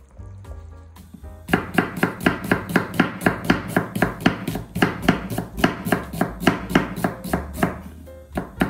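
Kitchen knife slicing onions on a wooden cutting board: quick, even strokes about four a second, starting about a second and a half in. A last single chop comes near the end.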